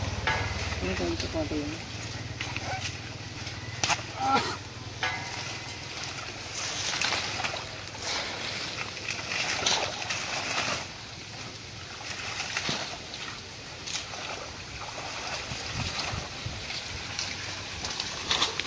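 Water splashing and sloshing, with rustling and knocking of water hyacinth stems as a fishing net is hauled in through the floating plants by hand. There are irregular bursts of short splashes rather than a steady sound.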